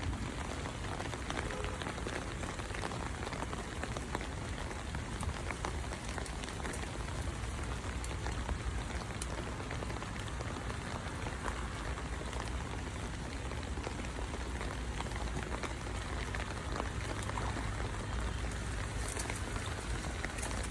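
Steady rain falling, heard as an even hiss with many small drop ticks, over a low rumble of wind on the microphone.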